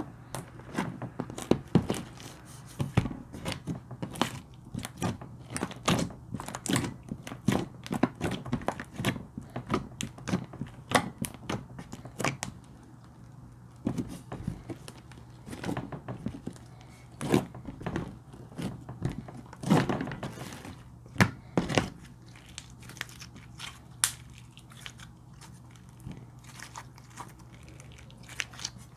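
Hands squishing and poking a thick, glossy slime, giving a quick, irregular run of sticky clicks and pops that thins out over the last few seconds as the slime is pulled and stretched.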